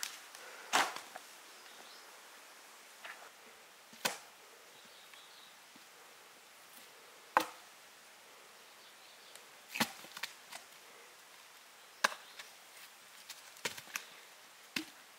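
A series of sharp chopping strikes, one every two or three seconds, coming closer together near the end.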